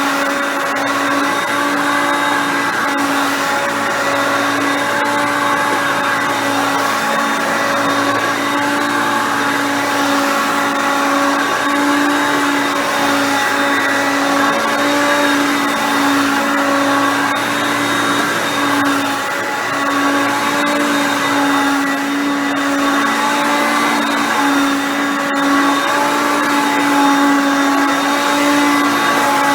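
Hoover Concept Two vacuum cleaner running steadily at an even pitch: a constant motor whine over the rush of air.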